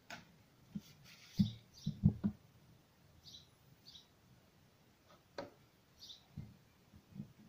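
Dull knocks and clunks of hands handling parts at an air compressor during an oil change. The loudest cluster of knocks comes about one and a half to two and a half seconds in, and a sharper click follows past five seconds. Short high bird chirps repeat every second or two behind it.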